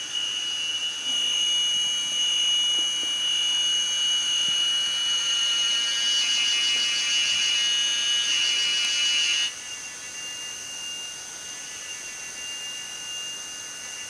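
Forest insects droning: a steady high-pitched whine with a faint regular pulse. A louder, rasping buzz joins about six seconds in and cuts off sharply about three seconds later.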